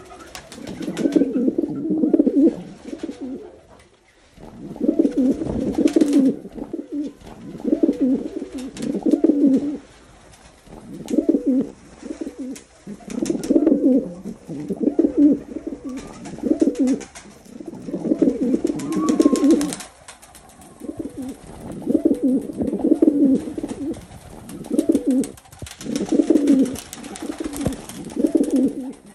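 Domestic pigeons cooing, low coos coming in repeated phrases of a second or two, one after another every couple of seconds.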